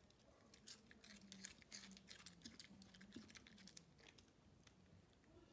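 A small dog chewing raw cabbage, a quick run of crisp crunches for about three seconds that tails off near the end.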